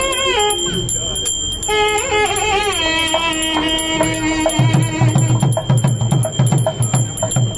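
Traditional Indian devotional music: a wavering melodic line over a steady high ringing tone, then a held note, with a quick drum beat coming in about halfway through.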